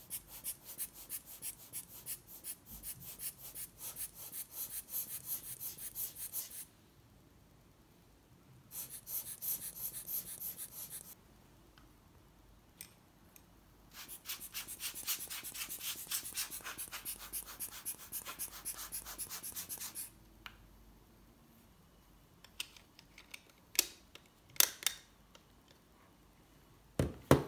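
Hand-squeezed rubber air blower bulb puffing air over a camera lens: a fast run of short airy puffs, several a second, in three bursts with pauses between them. Near the end come a few light clicks and one louder knock.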